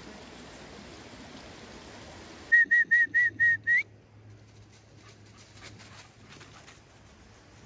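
A shallow stream running, which cuts off about two and a half seconds in. Then six quick high whistle pips, the last one sliding upward: a recall whistle calling the dogs back.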